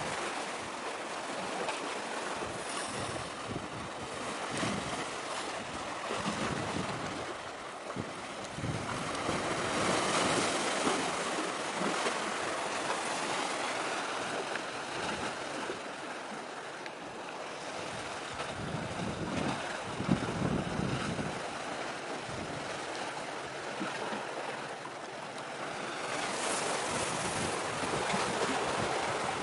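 Sea waves washing in and out, swelling and fading every few seconds, with wind gusting on the microphone.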